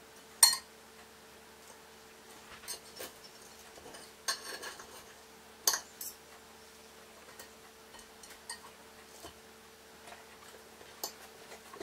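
Cutlery clinking and scraping against plates now and then, the sharpest clink about half a second in, over a faint steady hum.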